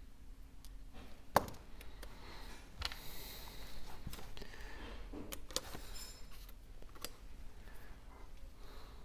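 Scattered light clicks and taps of small repair tools and tiny metal parts while an iPhone 12 is being taken apart, the sharpest click about a second and a half in.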